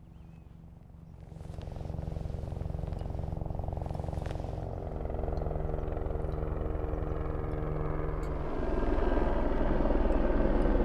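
Rescue helicopter approaching: a steady rotor beat with engine tone, growing louder about a second and a half in and louder again near the end as it comes in to land.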